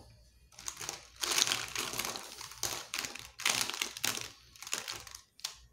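Plastic marker pens clattering and rustling against each other and the cloth as hands rummage through a pile of them, in several bursts of noise with a sharp click near the end.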